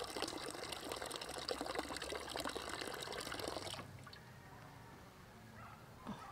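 Water poured in a stream into a large metal stockpot, splashing and bubbling as it fills. The pour stops about four seconds in.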